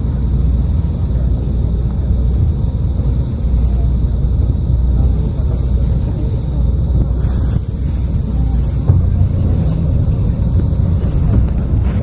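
Steady low rumble of wind buffeting the microphone, with a boat's engine running underneath.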